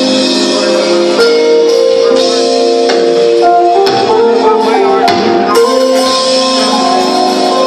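Live Christian worship band playing: sustained, loud chords of held notes that shift every second or so.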